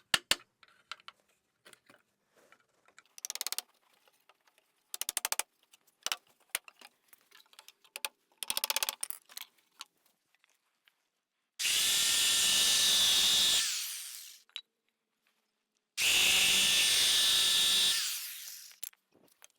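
An electric power tool working pallet wood: two loud runs of about two seconds each in the second half, each fading away as the tool winds down. Before them come a few short bursts of rapid clicking.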